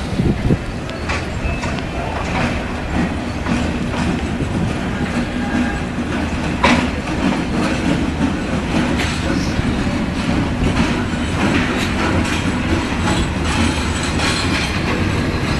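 Pakistan Railways diesel locomotive and passenger coaches arriving slowly at a station platform. The engine runs with a steady low hum while the wheels click over rail joints as the coaches roll past, with a sharper clank about seven seconds in.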